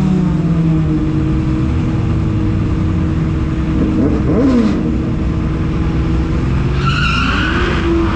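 Drag-racing cars running, with a steady engine drone throughout. About four seconds in, a car's engine pitch sweeps up and down, and near the end another rises.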